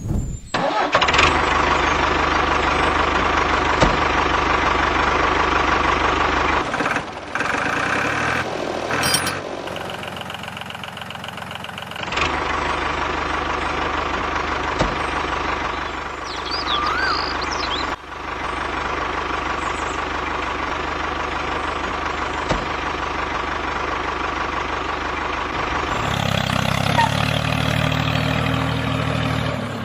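Engine-like machine running steadily, its sound changing abruptly several times where clips are cut together.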